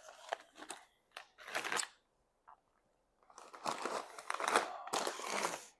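Plastic chip bag being handled: a few scattered crinkles, then about three seconds in, a longer run of dense crinkling and rustling.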